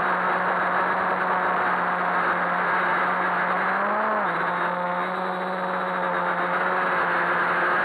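Quadcopter's electric motors and propellers whirring steadily in flight, heard close up. About four seconds in, the pitch rises briefly, then drops and holds a little lower as the throttle eases back.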